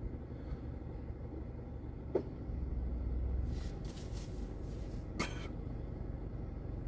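Low steady rumble of a car cabin, with cloth rustling as a T-shirt is pulled up to wipe the face, a small click about two seconds in and a short sharp sound about five seconds in.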